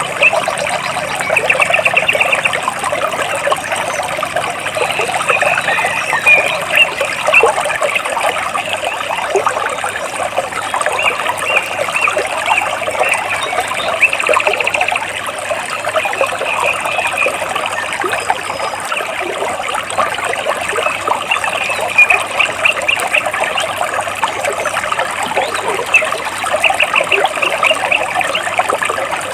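Stream water trickling and splashing between large rocks, a steady dense burble. Over it, birds chirp in short, rapid trills that come back every few seconds.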